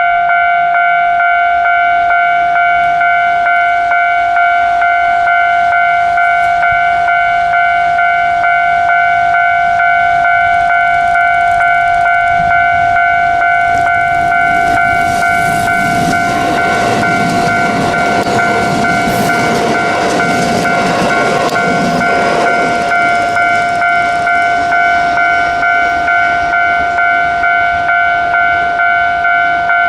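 Japanese level-crossing warning bell ringing in an even, repeating electronic clang, while an electric train passes through the crossing, its wheel and running noise rising from about fourteen seconds in and fading again around twenty-three seconds.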